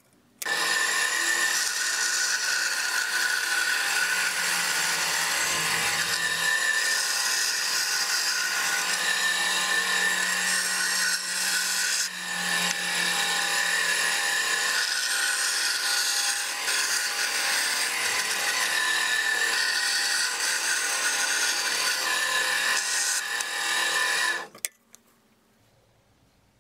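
Small benchtop bandsaw running with a steady whine, its blade cutting a handle profile out of composite cork board (cork granules bound with sawdust). It stops about two seconds before the end.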